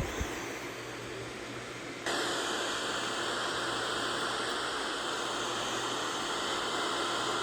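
Radio receiver static: a steady hiss from an empty or weak channel. The hiss jumps abruptly louder about two seconds in, as when the receiver is retuned or its squelch opens.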